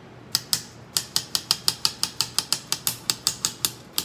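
Kitchen knife chopping a banana into slices on a granite countertop, the blade clicking sharply against the stone with each cut. Two cuts come first, then a quick even run of about five a second.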